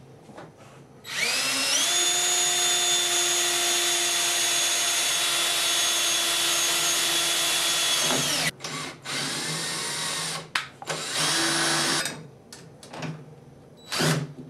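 Cordless drill with a small bit spinning up about a second in, then whining steadily for about seven seconds as it drills into metal boat-top tubing through a stainless banding strip, and stopping abruptly. A shorter drill run follows a couple of seconds later, then a few short clicks near the end.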